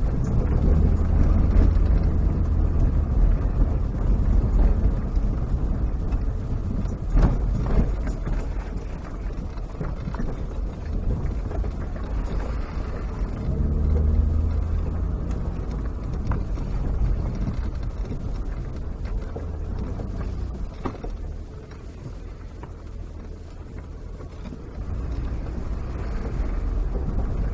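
A car's engine and tyres on a dirt bush track, heard from inside the cabin: a steady low drone with a few sharp knocks. The engine picks up about halfway through, eases off and goes quieter about three quarters of the way in, then picks up again near the end.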